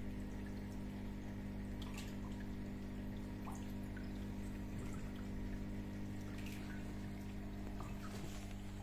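Reef aquarium running: a steady electrical hum from its pump under water trickling and dripping, with a few faint ticks.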